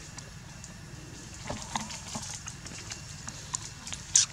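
Long-tailed macaque giving a short, sharp, high-pitched call twice near the end, over a low background of scattered light ticks and rustles.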